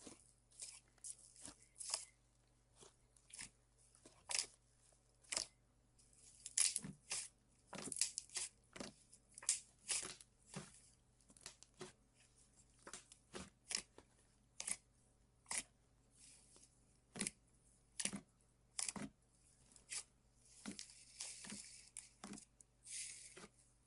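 Slime being poked, squeezed and stretched with fingers: an irregular string of sharp clicks and pops, with a denser crackling stretch near the end.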